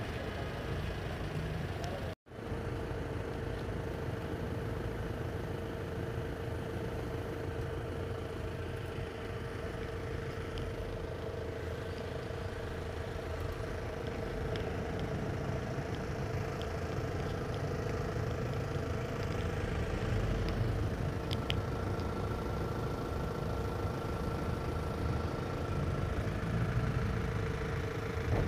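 Minibus engine idling steadily, a constant low rumble with a steady hum, broken once by a brief cut about two seconds in.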